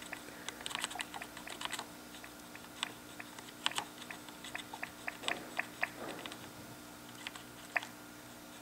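Keystrokes on a KBC Poker compact mechanical keyboard with Cherry MX Red linear switches and PBT keycaps: scattered clicks and short runs of presses rather than steady typing.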